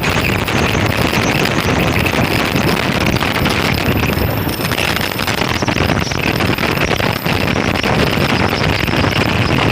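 Oxy-fuel cutting torch of a CNC gas cutting machine, a steady loud hiss with fine crackling throughout.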